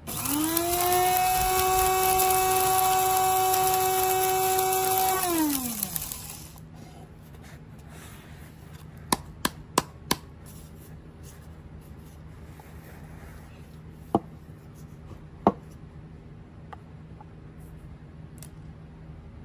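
Small electric coffee grinder running: the motor spins up with a rising whine, holds steady for about five seconds, then winds down. Several sharp clicks follow.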